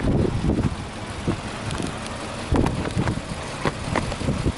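Subaru BRZ R's 2.0-litre flat-four boxer engine idling, with an uneven low rumble that surges now and then.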